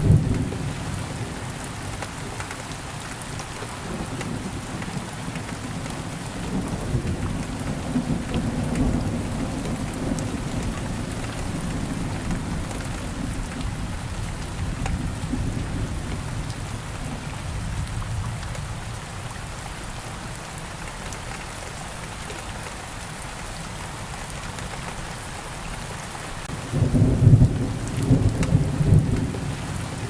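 Steady rain with thunder: a low rumble rolls on through the first half and dies away, then a loud peal of thunder breaks out near the end.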